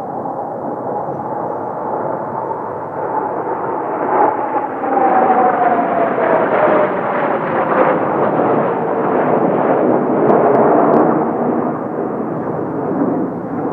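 Formation of Kawasaki T-4 jet trainers flying past, a loud jet rumble that builds to a peak midway, with the turbofan whine falling steadily in pitch as the jets go by.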